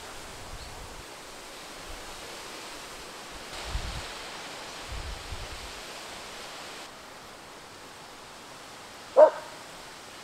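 A single short bark from a border collie about nine seconds in, the loudest sound here, over a steady outdoor background hiss.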